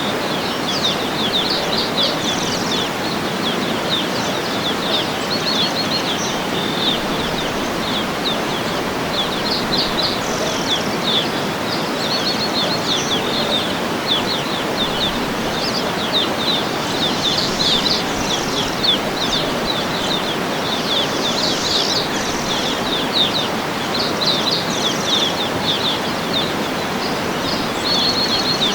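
Steady rush of a waterfall, with birds calling over it in many short high chirps and trills.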